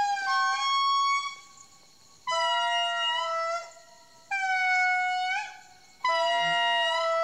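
Indri singing its loud, eerie territorial call: four long, clear wailing notes, each a little over a second, with short pauses between them. The first note steps up in pitch partway through.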